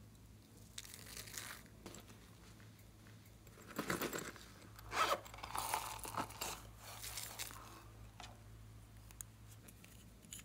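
Plastic packaging crinkling and tearing in short bursts as it is handled and pulled open, the loudest bursts about four seconds in and from five to seven seconds in, over a faint steady hum.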